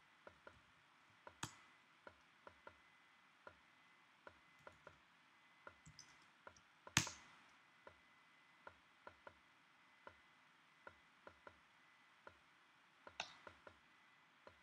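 Faint synthesized kick drum from an Overtone live sequencer, playing a repeating step pattern of short thuds (two close together, then a longer gap). A few sharper clicks cut in, the loudest about halfway through.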